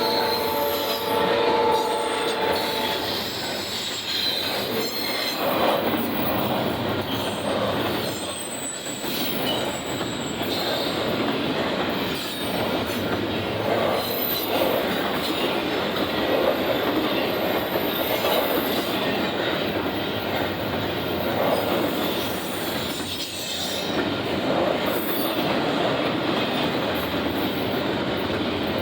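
Union Pacific intermodal freight train passing: a locomotive horn chord holds, then stops about three seconds in. After that the cars roll by in a steady rumble and clatter, with high wheel squeal coming and going.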